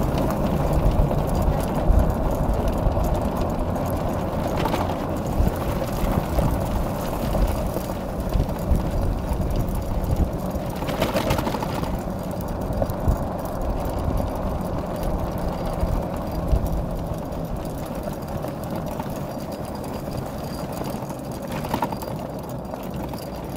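Motorless ATV pulled by a team of six Siberian huskies: steady rumble and rattle of its tyres and frame rolling over the ground, with a few brief louder knocks.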